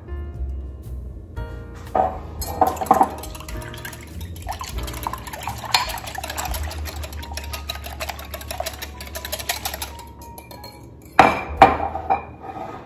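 Wire whisk beating milk, vanilla and egg in a glass measuring jug: a fast, continuous run of light clinks of wire against glass for about eight seconds, starting with a few louder clinks. A few sharp, louder clinks follow near the end.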